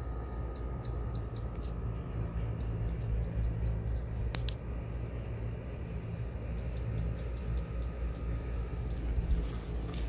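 A small bird giving short, high chip notes in quick runs of several at a time, separated by pauses, over a steady low rumble.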